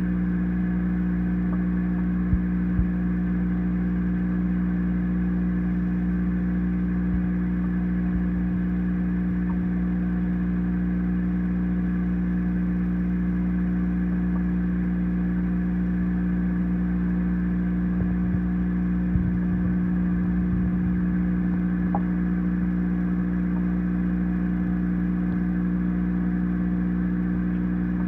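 Steady electric motor hum of aquarium equipment such as the tank's filter pump, an even drone with a few faint clicks and crackles.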